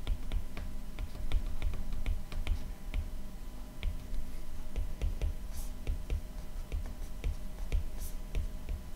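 Stylus tip tapping and clicking on a tablet's glass screen while handwriting, a few irregular light taps a second over a faint steady hum.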